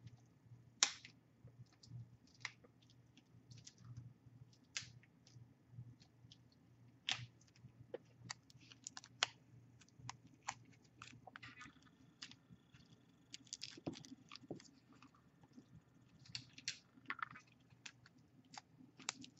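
Fingernails picking and scratching at the wrapping on a tarot card deck, making faint, irregular clicks and short crinkling rustles as the wrap resists coming off.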